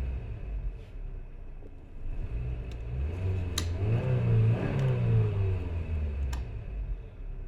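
Car engine revving, its pitch rising and falling for a few seconds, with a few sharp clicks, the loudest about three and a half seconds in.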